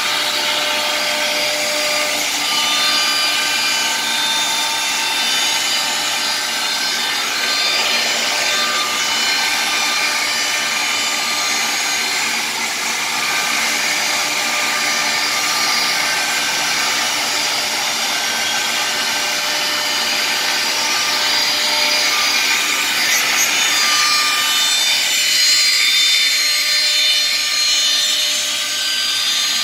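CNC nesting router spindle running at high speed while its bit cuts slots into a wood-grain laminated panel: a steady whine of several tones over the noise of the cut, the mix of tones shifting near the end.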